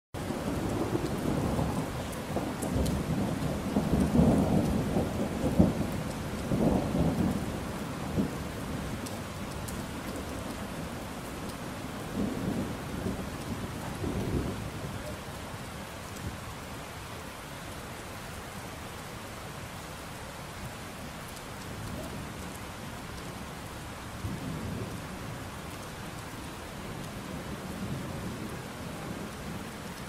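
Steady rain falling, with rolling thunder: a long rumble through the first eight seconds or so, a shorter one about twelve seconds in, and a fainter one near the end.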